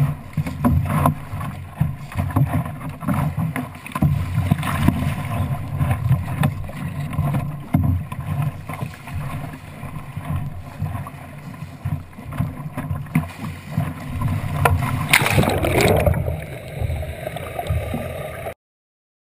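Wind buffeting the microphone and water splashing and slapping against the hull of a small Sabot sailing dinghy as it pounds through choppy waves. About fifteen seconds in, a loud rush of water comes as the bow plunges under; the sound then turns duller before cutting off suddenly.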